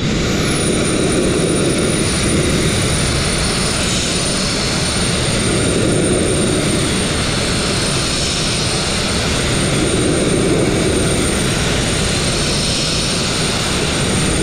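Abrasive blasting nozzle spraying fine crushed glass against a narrow boat's steel hull: a loud, steady hiss of air and grit, with a thin high whistle that comes in about half a second in and then holds. The operator takes it that the blast pot is running short of media, which he later puts down to a small blockage in the pot.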